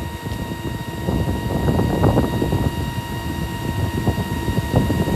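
Wind buffeting the microphone: an irregular low rumble with crackling gusts.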